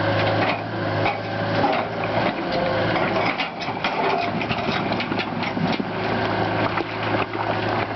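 Large excavator's diesel engine running steadily, with a run of clattering knocks and clanks in the middle.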